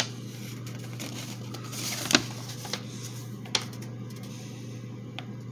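Paper instruction booklet being handled and unfolded, with a brief rustle about two seconds in and a few soft clicks and taps, over a steady low hum.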